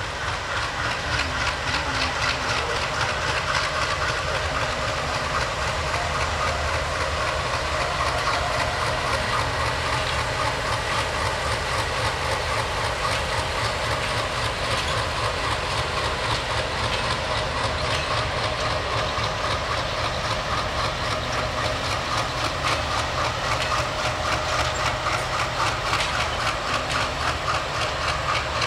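Diesel-hauled passenger train passing close by. The locomotive's engine rumbles, then the coaches roll past with a rapid, steady clatter of wheels over the rail joints and a steady high whine. It stays loud and even throughout.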